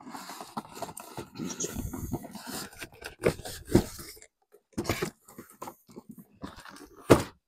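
Packaging and cardboard box being handled while parts are unpacked: irregular rustling, scraping and crunching, with a sharper knock near the end.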